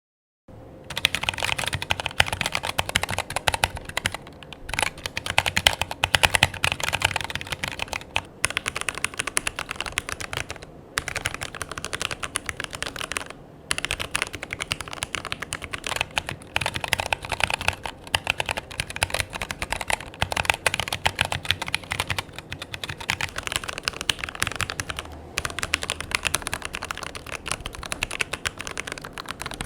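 Rapid typing on a mechanical keyboard: a dense, steady stream of key clicks with a few brief pauses.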